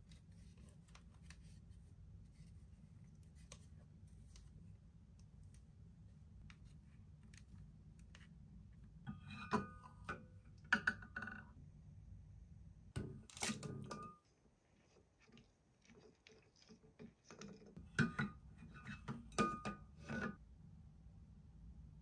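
Hands handling toys and their packaging: scattered clicks, taps and rustling over a low hum, with louder bursts of clatter about halfway through and again near the end.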